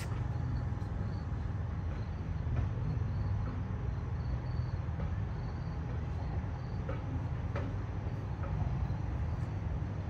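Low steady rumble and hum of the Johnstown Traction #358 streetcar rolling along its street track, with a few faint clicks.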